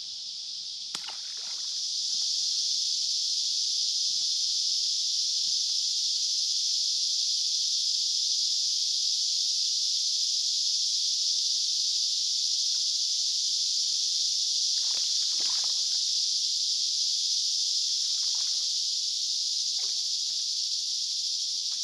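Steady high-pitched drone of insects in the riverside brush, swelling a second or two in and then holding. About a second in, a small splash as a released carp lands in the river.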